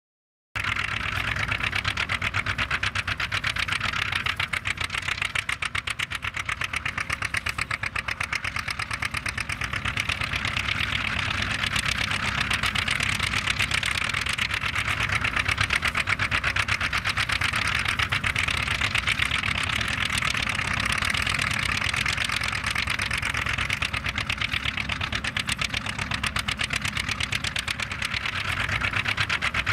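Antique John Deere two-cylinder tractor engine running with a rapid popping exhaust beat, starting about half a second in.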